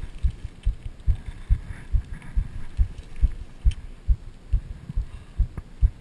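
Muffled low thumps in a steady rhythm, about two and a half a second, from a chest-worn GoPro camera in its housing being jostled by the cyclist's motion while riding.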